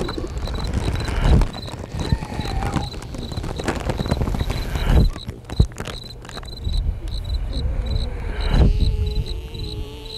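Experimental ambient sound composition. A short, high, insect-like chirp repeats two or three times a second over scattered clicks, crackles and uneven low rumbling. A held tone comes in near the end.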